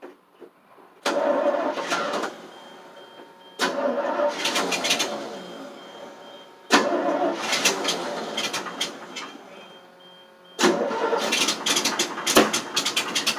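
1988 FMC 6000 truck's carbureted engine being cranked by the starter in four separate attempts, each a couple of seconds long, without catching. A hard start, which the owner puts down to fuel not reaching the carburettor.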